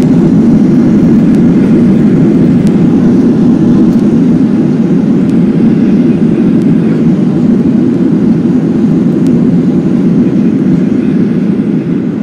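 Cabin noise of a Boeing 737-800 on its landing rollout: a loud, steady rumble of engines and runway roll heard through the fuselage, which begins to die down near the end as the jet slows.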